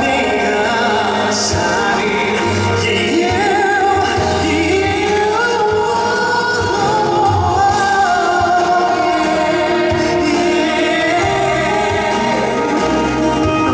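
Live pop ballad performed by a band, with a male singer holding long notes that waver, sung into a microphone without clear words.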